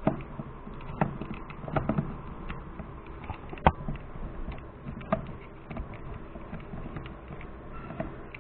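Scattered plastic clicks and knocks from handling cordless electric ratchets and their battery packs: a battery being pulled out, tried and fitted back into the tool. The sharpest knock comes about halfway through.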